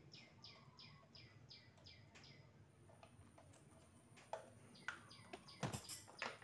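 A small bird calling in quick descending chirps, about three a second, over the first couple of seconds. Then, from about four seconds in, sharp clicks and knocks as the steel beaters are pushed into the sockets of a Miyako electric hand mixer, the loudest knock near the end.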